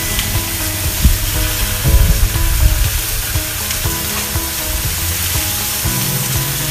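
Pork chops sizzling on a hot Blackstone flat-top griddle, a steady frying hiss. A few low thumps come about a second in and again around two seconds in.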